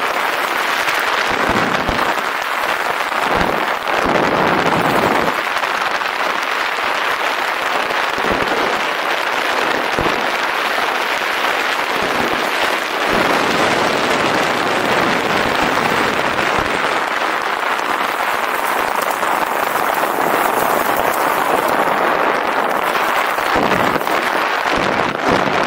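Steady rushing wind on the microphone during a fast downhill ride, with crackling and rattling from rolling over a rough trail and a few brief knocks.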